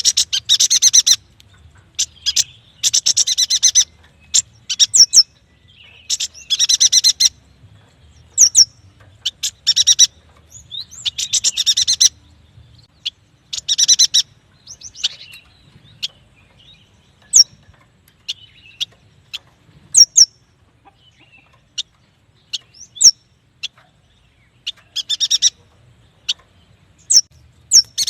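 Yuhina singing: bursts of rapid, high chattering about a second long, repeated every few seconds, with single sharp high chips in between.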